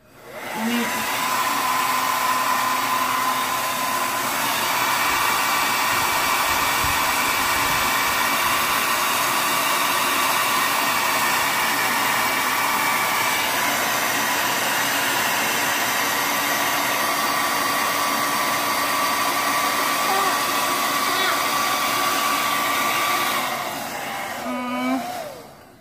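Handheld Revlon hair dryer switched on and running steadily, blowing hot air to melt crayon wax: a rush of air with a whine that steps up slightly in pitch about four seconds in. It is switched off shortly before the end.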